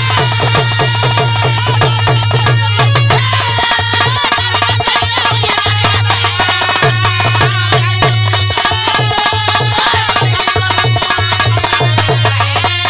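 Instrumental break in a Bhojpuri birha song: a hand drum plays a quick, steady rhythm of low strokes that bend in pitch, under a melody line.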